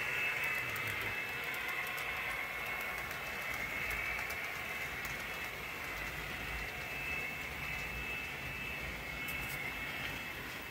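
Model train locomotives running on the layout: a steady whir of electric motors and gearing with wheels rolling on the rails, and a few faint clicks.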